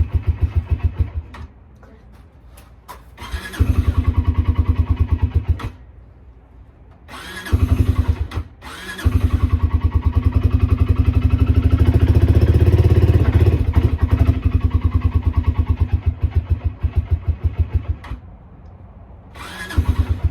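Kymco MXU 300 ATV's single-cylinder engine running cold on choke, firing in a steady thump that surges loud several times and falls back to a quieter, rough idle between surges. The engine is cold-blooded and not yet warmed up.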